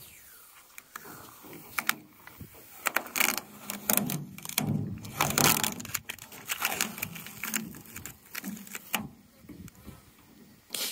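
Masking tape being peeled off the painted steel door of a truck: a run of crackling, tearing bursts and short clicks over several seconds, busiest in the middle.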